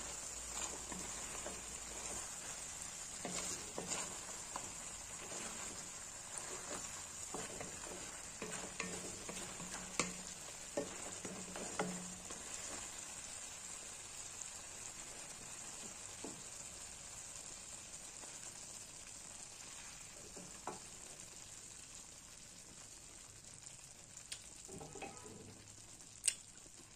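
Fish and fermented bamboo shoot sizzling in a metal wok. A spatula stirs and scrapes against the pan with sharp clicks through roughly the first half. After that the steady sizzle carries on alone and slowly fades.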